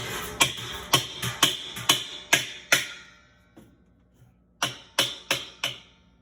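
A run of sharp hammer blows at uneven spacing, about two a second, then a pause and four more quick blows, as a part of a Speed Queen top-load washer is knocked loose during a bearing rebuild.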